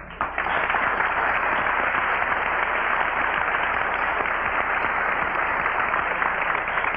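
Studio audience applauding steadily; the clapping breaks out suddenly.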